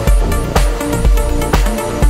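Electronic background music with a steady beat, about two beats a second, over heavy bass.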